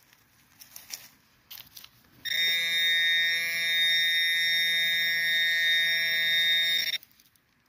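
Metal-detecting pinpointer probe in a dig hole sounding one steady electronic alarm tone for about five seconds, starting about two seconds in and cutting off abruptly near the end. The hole is full of nails, so the probe alarms continuously and pinpointing the target is nearly impossible.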